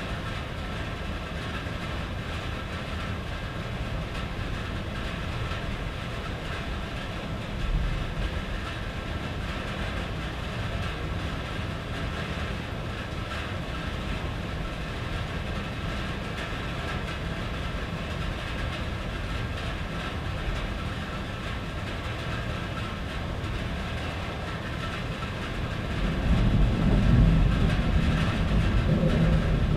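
Steady rain drumming on a tin roof. A deep rumble of thunder swells up about 26 seconds in and becomes the loudest sound.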